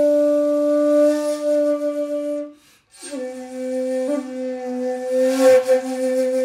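Intro music of long, held notes in two parts, one lower and one about an octave higher. The music breaks off briefly about two and a half seconds in, then resumes with more sustained notes.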